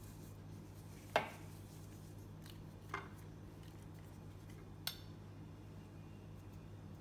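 Three light knocks on a ceramic plate as raw fish steaks are pressed into corn starch and turned over, the first the loudest, over a steady low hum.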